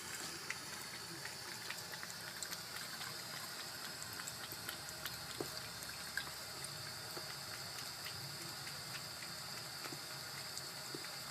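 Tap water running steadily and splashing onto a cat's head, with small scattered drips and splatters.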